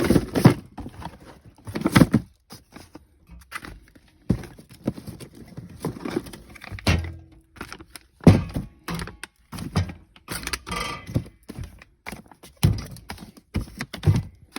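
Cardboard firework cake boxes being handled and set down: a series of irregular hollow thunks and knocks, with rustling between them.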